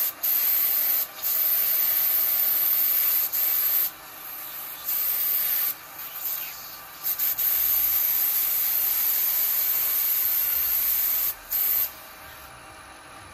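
Aerosol can of black spray paint hissing in several bursts with short breaks between them, the longest about four seconds; it stops about twelve seconds in.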